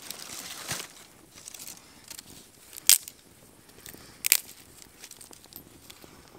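Dry twigs being handled and snapped by hand for a small campfire: a rustle of kindling at the start, then two sharp snaps about three and four seconds in, with scattered small crackles.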